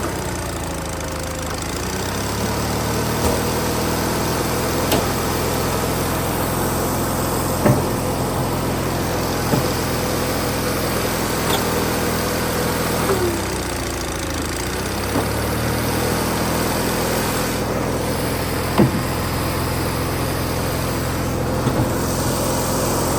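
Gas engine of a log splitter running steadily, its pitch dipping under load and recovering about halfway through, with a few sharp knocks from the splitting.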